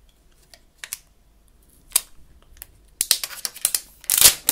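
Plastic protective wrap being peeled off a new iPhone 7: a few separate crackles at first, then dense crinkling from about three seconds in, loudest near the end.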